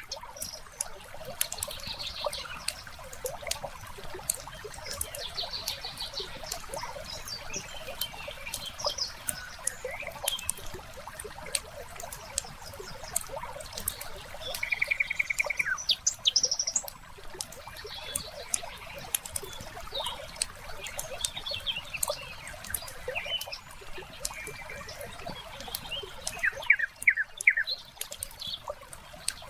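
Wood fire crackling with frequent sharp pops and snaps, while small songbirds chirp and trill over it. A quick rapid trill comes about halfway through, and a burst of chirps comes near the end.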